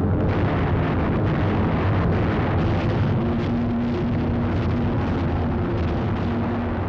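Steady, dense roar of an air-battle soundtrack: aircraft engines droning under continuous anti-aircraft gunfire and shell bursts.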